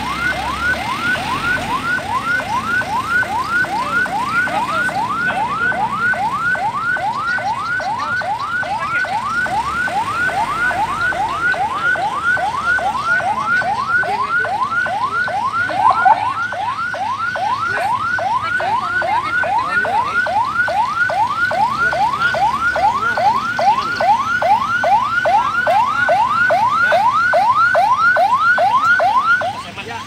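Ambulance siren on a Hyundai H-1 ambulance, sounding in fast yelp mode: rapid rising wails, about two and a half a second, repeating without a break. It drops suddenly in loudness shortly before the end.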